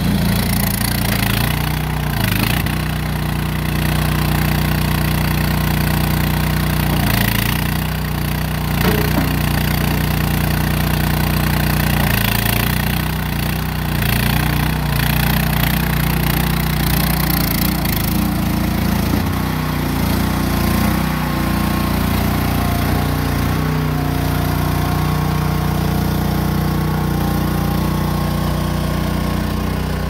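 Small engine of a mini stand-on tracked skid steer running steadily while the machine is driven and maneuvered, with a few short clatters along the way.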